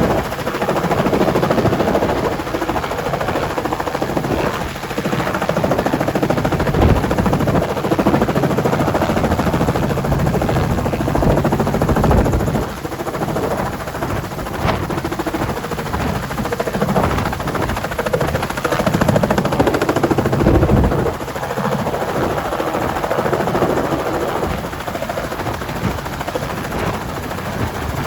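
Robinson R44 Clipper II helicopter running: its rotor beats in a fast, even chop over the steady drone of its Lycoming six-cylinder piston engine.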